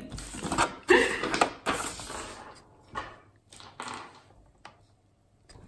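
Low talk early on, then a few light separate knocks and handling sounds of objects being moved about on a table.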